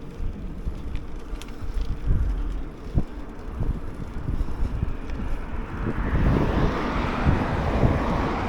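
Wind buffeting the camera microphone while riding, with a low gusty rumble. A louder rushing noise swells from about six seconds in.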